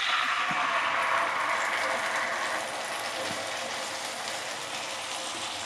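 Spiced yogurt gravy poured into a hot kadhai of fried onion and garlic, sizzling in the oil. The sizzle is loudest in the first couple of seconds, then settles to a softer, steady hiss.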